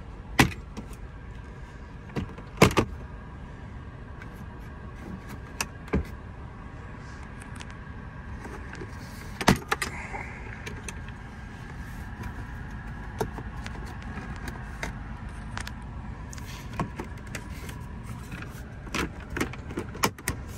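Sharp plastic clicks and knocks of overhead-console trim panels being pried off their retaining clips and handled in a truck cab. The clicks come a few at a time, loudest early on and again in a cluster near the end, over a steady low hum.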